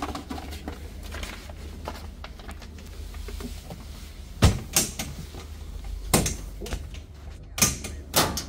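A handful of sharp knocks and clunks, the loudest about halfway through, as the overhead emergency-equipment compartment of a school bus is opened and the warning triangles inside are handled. A steady low hum runs underneath.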